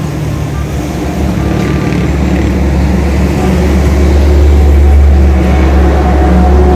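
A motor vehicle's engine running with a low, steady rumble that builds to its loudest about five seconds in and then eases off.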